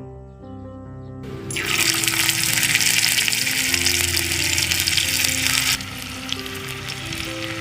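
Liquid hitting a hot miniature cooking pan, with a loud hiss starting about a second in and cutting off suddenly after about four seconds. It then settles to a quieter, steady sizzle with small crackles. Background music plays throughout.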